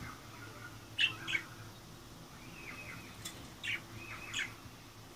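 Budgerigars chirping: two short chirps about a second in, then a run of chirps and short whistled calls a little later.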